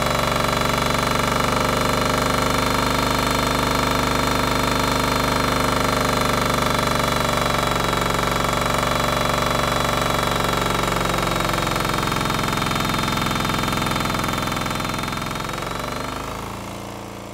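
Kohler air-cooled single-cylinder diesel engine running steadily at speed on biodiesel, loaded by a dynamometer. It gets quieter over the last few seconds, and near the end its pitch falls as the engine slows.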